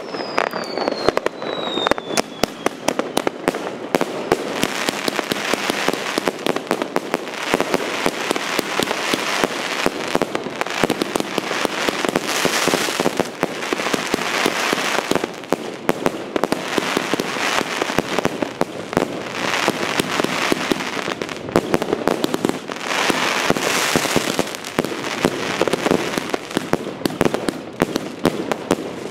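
Consumer firework cakes fused in a chain, firing without pause: rapid shots and pops throughout, with swells of crackle from the bursting stars. A falling whistle sounds in the first few seconds.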